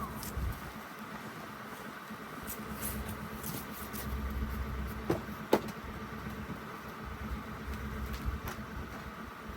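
Pickup truck engine idling with a steady low hum, and two sharp knocks a half second apart about five seconds in.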